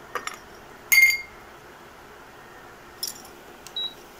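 Cashew nuts tipped from a glass bowl into a steel pan: the bowl knocks the pan with a short ringing clink about a second in, then lighter clinks about three seconds in. A short high electronic beep near the end.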